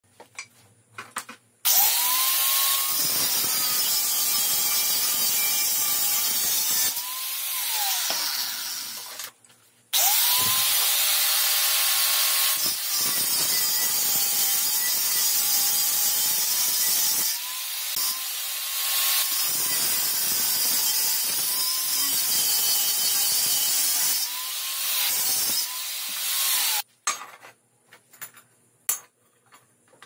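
Angle grinder with a cut-off disc cutting through a steel rod. The motor's whine sags in pitch as the disc bites and recovers as it eases off. There are two long cuts with a short stop about nine seconds in, then it stops about a second before the end, leaving a few light clicks.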